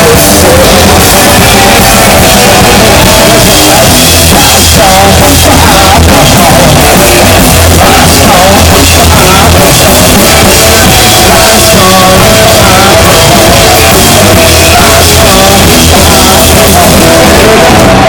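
Live rock band playing: electric guitar, bass guitar and drum kit, with a man singing lead. The recording is very loud, pinned near full level throughout.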